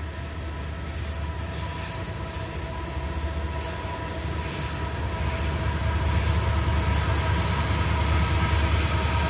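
Freight cars rolling past with a steady rumble and several steady high tones held over it. The rumble grows louder in the second half as a mid-train CSX DPU diesel locomotive comes by.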